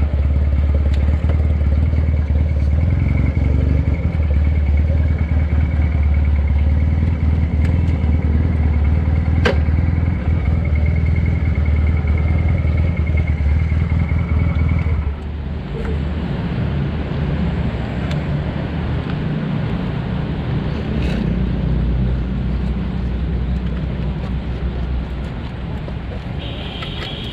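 Motorcycle engine running as it is ridden, a steady low hum. About halfway through it drops noticeably in level and carries on more quietly.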